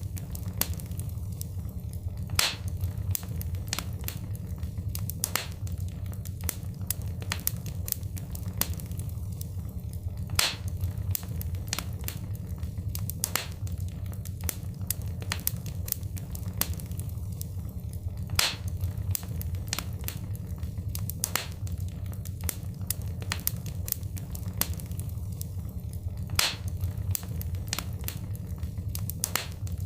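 Wood fire crackling in a fireplace: a steady low rumble of flame with dense small snaps and pops, and a louder pop about every eight seconds.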